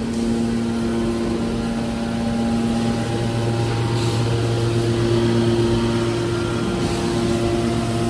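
Hydraulic iron baler's power unit running: its electric motors and hydraulic pump make a steady machine hum, changing slightly in tone about three seconds in.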